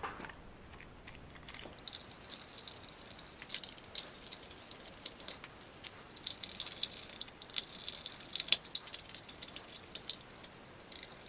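Faint, scattered clicks and ticks of small plastic and metal RC buggy parts being handled and fitted by hand while a screw is tightened, most of them coming in the middle stretch.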